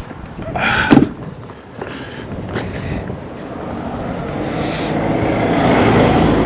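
A passing road vehicle, its noise building to a peak near the end, with a sharp knock about a second in.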